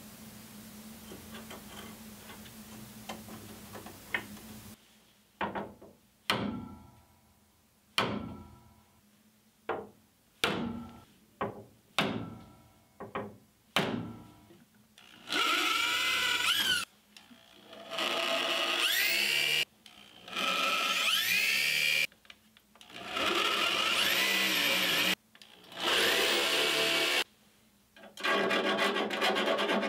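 A dozen or so sharp hammer taps on metal, each ringing briefly. From about halfway through, a power drill runs in six short bursts of a second or two, its pitch rising and falling as it bores mounting holes in the steel firewall.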